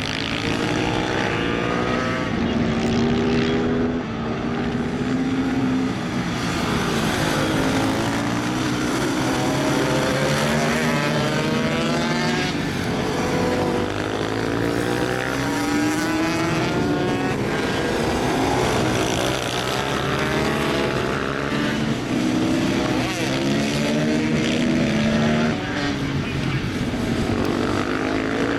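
Several racing motorcycles' engines revving hard and falling off again as the bikes accelerate and brake through tight corners. Their overlapping pitches rise and fall again and again without a break.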